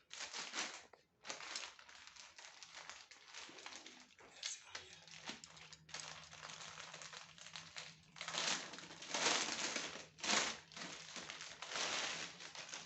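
Plastic packaging crinkling and rustling in irregular bursts as a parcel is unwrapped, loudest about eight to ten seconds in.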